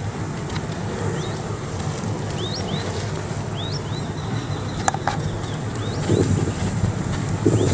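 Small birds calling with short, rising chirps, repeated many times, over a steady low rumble. There is a single sharp click about five seconds in, and near the end come soft thuds of a horse's hooves walking on sand.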